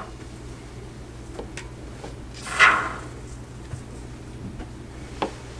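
Can of expanding spray foam hissing in one short spurt, about halfway through, as foam is squirted into the hole around a gas line in the floor. A single sharp click comes near the end.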